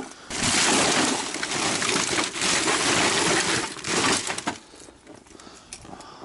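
Black plastic garbage bag rustling and crinkling as it is carried and shoved into a car's hatchback trunk, with footsteps crunching in snow; the noise drops away about four and a half seconds in.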